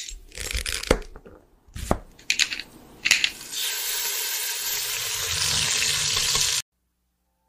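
Kitchen sound effects: a few sharp knocks over a hissing noise, then a steady hiss that cuts off suddenly near the end.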